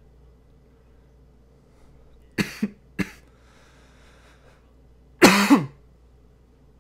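A person coughing: three short coughs about two and a half to three seconds in, then a longer, louder cough just after five seconds.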